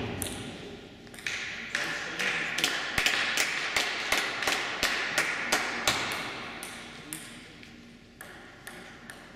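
Table tennis balls clicking on tables and bats: a quick, irregular run of light taps through the middle, then a few single bounces near the end.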